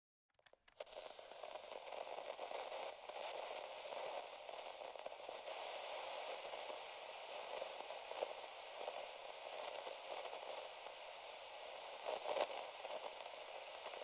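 Faint crackling static: a steady hiss with scattered pops, starting after a few clicks just under a second in.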